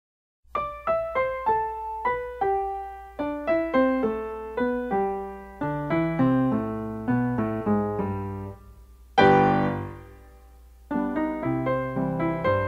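Solo piano music: a melody of single notes with a low hum beneath, then a loud chord about nine seconds in that dies away into a short pause before the notes start again.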